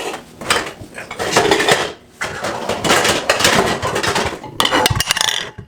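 Kitchen utensils clattering rapidly against dishes in three bursts, as during omelette preparation.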